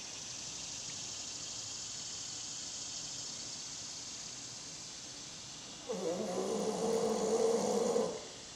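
Sleep snoring: a long snore about six seconds in, lasting about two seconds, with a steady breathy hiss in the stretch before it.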